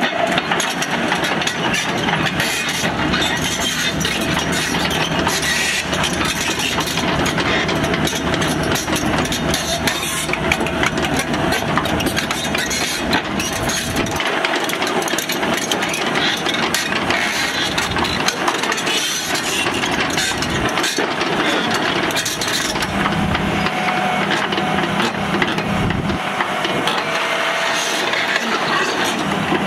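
Komatsu PC200LC excavator's six-cylinder turbo diesel engine running steadily, with a faint steady whine above it.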